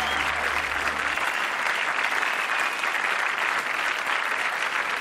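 Concert audience applauding, while a low held note from the band stops about a second in.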